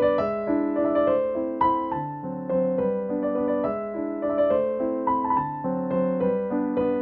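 Background music: a piano-style keyboard playing a melody over chords, with the notes changing about every half second.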